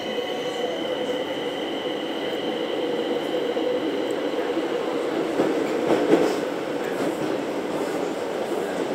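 Madrid Metro Line 9 train running, heard from inside the carriage as it pulls out past the platform and into the tunnel: a steady rumble and rattle with a high whine that fades out about halfway. A louder clatter comes about six seconds in.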